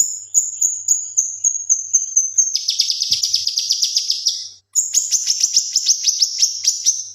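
Male cucak kinoi singing: a string of high, clear whistled notes at about three a second, broken twice by fast rapid-fire trills, the bird's 'tembakan' (shooting) phrases.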